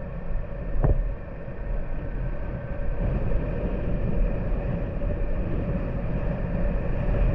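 Small motorcycle engine running steadily while riding, with wind buffeting the microphone and road rumble from rough, patched pavement. One sharp knock about a second in, as over a bump.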